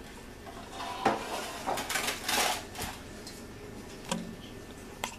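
Kitchenware being handled: a sharp knock about a second in, then scraping and rustling of a spoon and crumb mixture against a metal mixing bowl and a paper-lined cake pan, with a few light clicks later.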